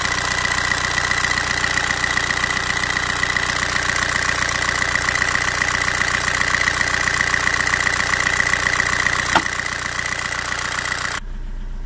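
A 1.9 TDI diesel engine with a rotary injection pump idles with a steady, fast diesel clatter, heard close up in the engine bay while the pump's fuel-quantity adjuster is tightened. A steady high whine runs along with it, and there is one sharp click about nine and a half seconds in.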